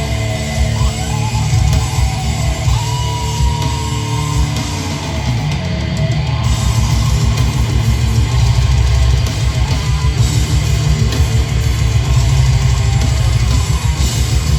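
Heavy metal band playing live: distorted guitars over fast, dense drumming.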